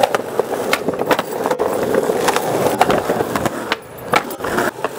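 Skateboard wheels rolling on rough concrete, a steady grinding roll peppered with sharp clicks from cracks and grit. The roll drops away about four seconds in, followed by a couple of sharp clacks of the board.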